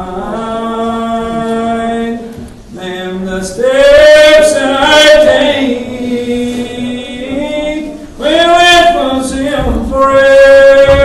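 Unaccompanied congregational hymn singing in the slow, drawn-out Old Regular Baptist manner. Long held notes swell and slide between pitches, in several phrases with short breaths between them.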